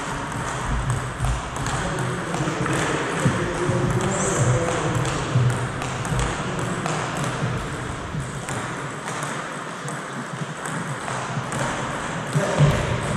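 Table tennis balls ticking off bats and tables from play elsewhere in the sports hall: many light, irregular clicks, under a low murmur of voices.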